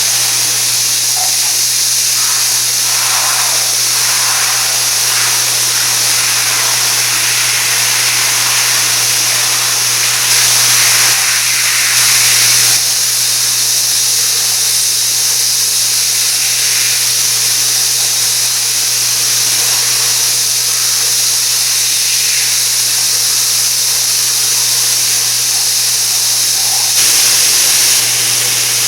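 Water spraying steadily from a high-pressure rain shower head, a loud, even hiss with a few brief swells in strength.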